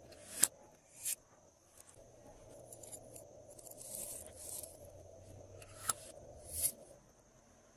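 Glossy slime being pressed and stretched by hand, giving sticky pops and clicks: four sharp ones spread through, with a softer crackling stretch around the middle. A faint steady high whine sits underneath.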